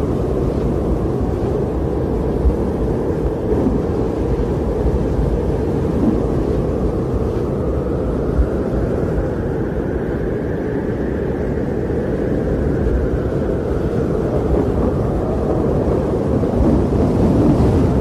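Blizzard wind sound effect: a steady, low rushing wind with a howl that climbs in pitch to its highest about halfway through, then sinks again.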